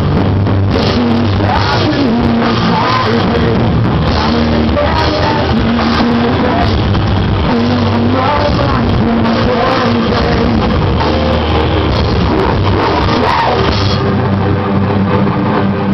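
A live rock band playing loudly, with drums, amplified instruments and a singer's voice.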